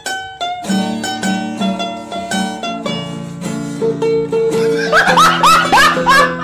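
Background music played on plucked strings, with a run of picked notes over a steady low line. Over the last second or so a child's wailing cries slide up and down in pitch over the music.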